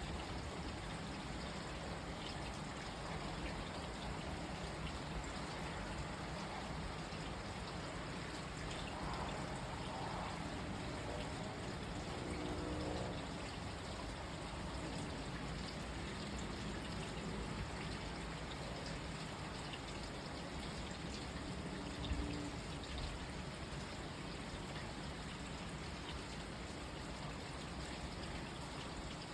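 Steady rain falling, with water trickling and pouring as it runs off.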